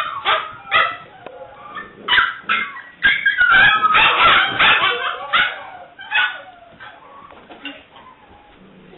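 Seven-week-old English springer spaniel puppy yipping and whimpering in short, high-pitched calls. They come thickest and loudest about three to five seconds in, then thin out to a few quieter whines.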